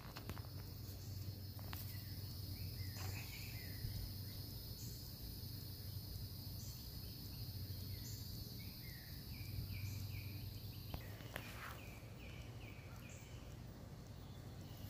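Outdoor ambience: a steady, high-pitched insect drone that cuts off about eleven seconds in, with short bird chirps repeated throughout.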